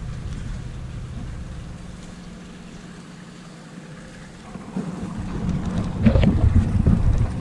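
Wind buffeting the camera microphone as a low, uneven rumble. It eases off in the middle and gusts louder in the last few seconds, with a few brief knocks near the end.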